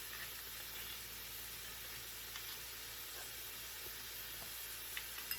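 Frozen riced cauliflower with peas and carrots sizzling in sesame oil in a pan: a steady gentle hiss, with a few faint clicks near the end.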